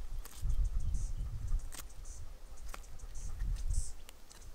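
Knife working inside a freshly shot young goat's carcass as it is field dressed, giving a scatter of small clicks and crackles over an uneven low rumble.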